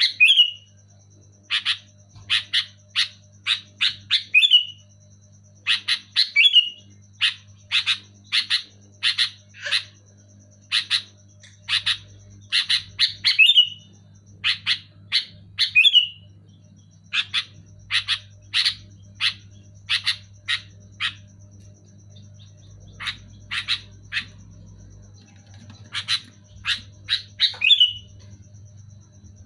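Sooty-headed bulbul (kutilang) calling loudly: runs of short, sharp, evenly spaced notes, about three or four a second, repeated in bursts with short pauses, several runs ending in a brief slurred note.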